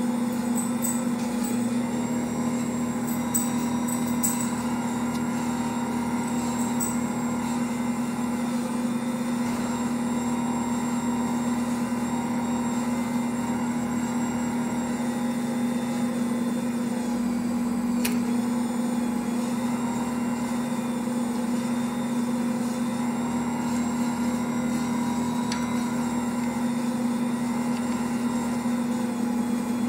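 Ankarsrum Assistent stand mixer running steadily with its dough hook, the motor turning the stainless bowl as bread dough is kneaded: a steady low hum, with one faint click a little past halfway.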